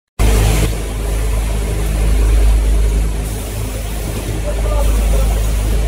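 Automatic breathing-filter installing machine running: a steady low hum with machine noise from the robot and conveyor. The sound drops out completely for a split second at the very start.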